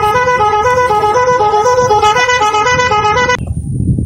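A loud, reedy horn tone alternating back and forth between two close notes, each held about a quarter of a second, that cuts off suddenly about three and a half seconds in.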